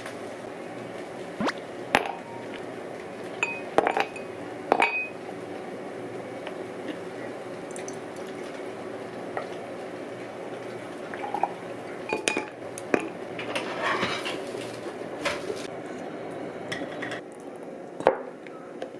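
Dishes and cooking utensils clinking in a kitchen, a dozen or so scattered knocks, some ringing briefly like metal or glass, over a steady low hum.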